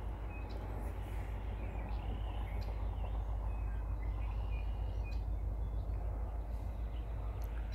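Outdoor ambience: a steady low rumble that grows slightly louder, with small birds chirping now and then.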